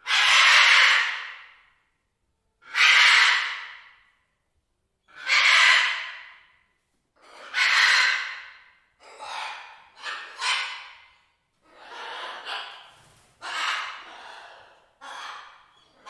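Green-winged macaw squawking: a series of about nine harsh calls, each starting suddenly and trailing off, spaced a couple of seconds apart at first and coming quicker in the second half.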